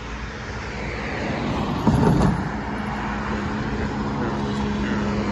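Vehicle noise growing steadily louder, with a brief louder knock about two seconds in and a steady low hum from then on.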